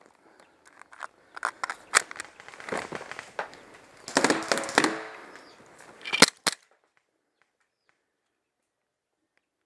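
Sharp cracks and snaps of airsoft guns firing, mixed with rustling movement through brush. The sound cuts off abruptly about two-thirds of the way through.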